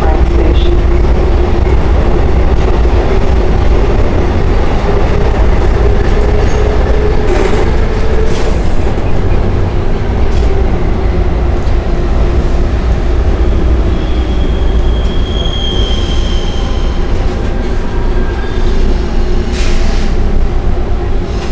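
Hawker Siddeley/UTDC H6 subway car heard from inside while running through the tunnel: a loud steady rumble of wheels on rail under a motor whine that climbs a little over the first several seconds. A high wheel squeal rises for a few seconds past the middle, and a few sharp clacks come around the first third and near the end.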